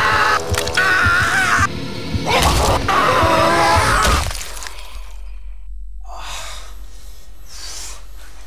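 Loud horror-film soundtrack: wavering high tones over a pulsing low end, with crashing, shattering hits. About four seconds in it suddenly drops away to a low steady hum and faint rustling.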